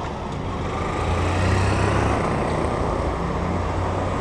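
Road vehicle engine running close by with a low, steady hum over traffic noise, growing louder about a second in.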